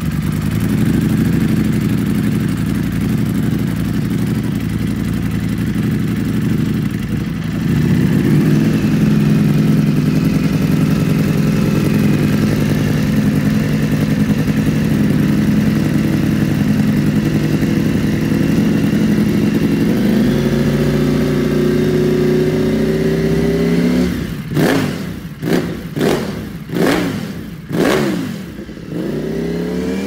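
Ducati Panigale V4's 90-degree V4 engine running steadily at idle through an aftermarket exhaust, then revved in about five quick throttle blips, each dropping straight back to idle.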